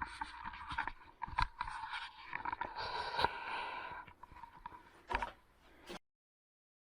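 Faint scattered knocks, clicks and scraping, with a last knock about five seconds in, then the sound cuts to dead silence.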